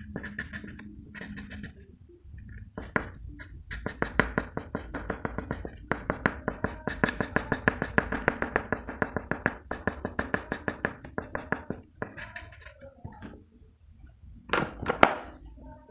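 Graphite pencil scratching on paper in quick back-and-forth shading strokes, about five a second, with short pauses and two louder strokes near the end.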